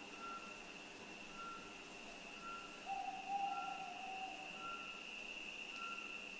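Night-time animal calls: short whistled notes repeating about once a second over a steady high-pitched whine. About three seconds in, one louder, lower, long hooting note lasts nearly two seconds.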